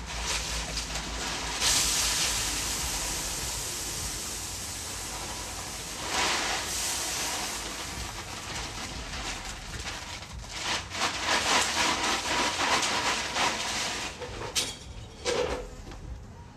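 Wood chips poured from a bag onto a kennel floor: a rushing hiss that starts about two seconds in, surges again around six seconds, and turns to rustling and crackling later on.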